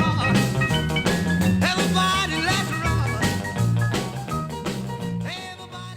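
Background music with a stepping bass line and a bending melody over it, fading out near the end.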